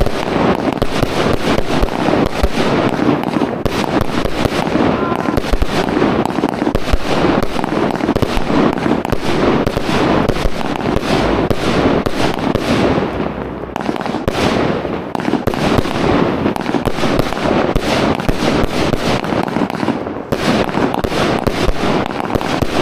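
Fireworks going off in a loud, dense, unbroken barrage of bangs and crackles, easing only briefly twice.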